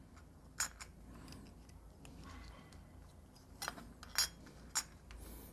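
A few light clicks and clinks of small Hirose connector parts (metal shield and aluminium covers, case) being handled and fitted together, one near the start and a cluster of four in the second half.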